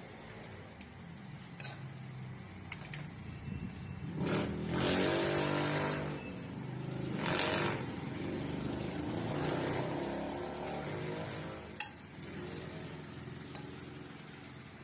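A motor vehicle engine passing, rising and falling in pitch, loudest about four to eight seconds in. A few sharp clicks come from a metal spoon striking a wok as pork chops are scooped out.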